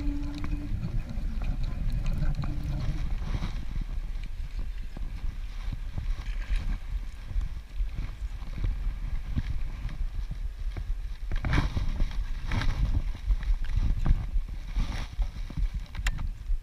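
Steady low rumble of wind and handling noise on an action camera's microphone, with a few short scuffing noises about eleven to fifteen seconds in and a sharp click near the end.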